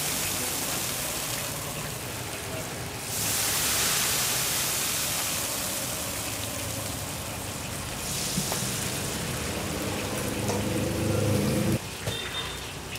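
Hot oil sizzling on freshly ground green chili sambal in a stone mortar: a steady hiss that swells and fades a few times.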